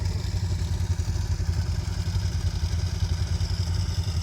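ATV engine idling steadily, with no revving.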